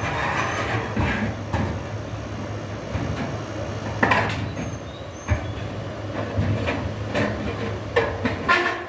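Scattered knocks and clanks of a metal strip being handled and worked by hand, over a steady low hum.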